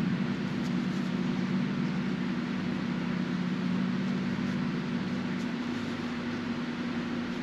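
Steady low mechanical hum with an even hiss over it, the sound of a fan or air-conditioning kind of machine running in the room.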